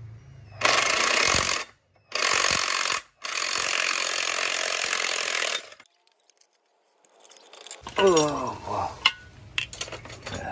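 Pneumatic power tool run in three bursts, about a second, under a second and two and a half seconds long, working a motorcycle crankshaft out of its crankcase. After a short silence, quieter mixed workshop sounds follow.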